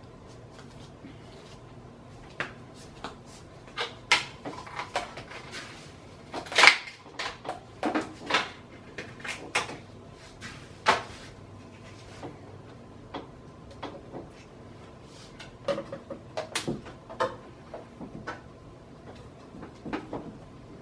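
Irregular knocks, clicks and short creaks of a fuselage plug being worked loose from a fiberglass mold half by hand, with one louder crack about six and a half seconds in.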